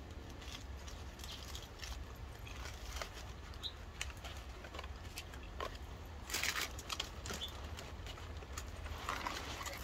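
Quiet eating and handling of fast-food packaging: soft chewing, with the clicks and crinkles of paper wrappers and a cardboard food box being opened and moved, and one louder rustle about six seconds in.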